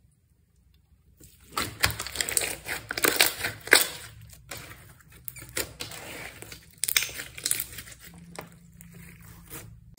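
Slime being squished and kneaded by hand, with irregular crackles, pops and squelches starting about a second in.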